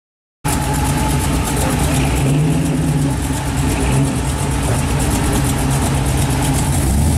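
Exhaust of a 1964 Chevrolet Impala running steadily at low revs as the car rolls slowly, with a slight rise in pitch about two seconds in.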